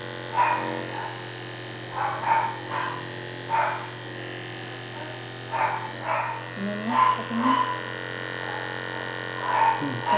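Small dog giving about a dozen short yelps or whimpers, alone or two or three close together, as its injured paw is held and handled. A steady electric hum runs underneath.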